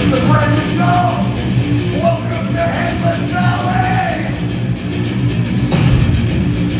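Heavy metal band playing live, with distorted guitars and drums. A vocalist sings held notes over them for about the first four seconds.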